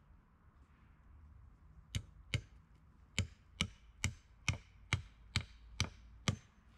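Axe chopping wood: about ten sharp blows, two close together about two seconds in, then a steady run of about two strikes a second.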